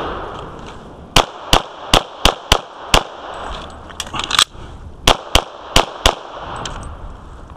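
Glock 35 .40 S&W pistol fired in rapid strings: six quick shots about a third of a second apart, a short break with a few lighter clicks and one more shot, then four more quick shots.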